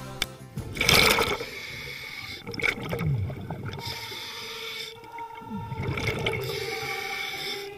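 A diver's splash about a second in, then muffled underwater gurgling and bubbling heard through a dive-mask camera's microphone.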